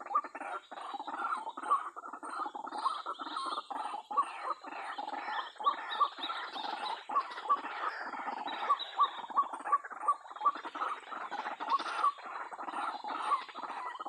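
White-breasted waterhen calls: a continuous fast run of repeated harsh croaking calls, with sharp louder notes recurring several times a second.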